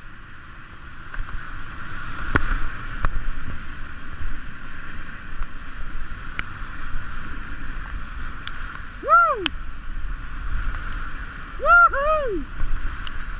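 Steady rush of whitewater rapids around a kayak, with a couple of sharp knocks about two and three seconds in. Three short high calls, each rising then falling in pitch, come about nine and twelve seconds in.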